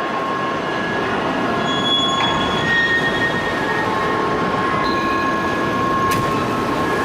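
Steady industrial din of a large forging press working a hot billet, with thin high squealing tones that come and go over it. One sharp click about six seconds in.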